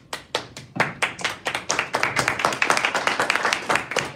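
A small group applauding: a few scattered claps that quickly thicken into steady clapping.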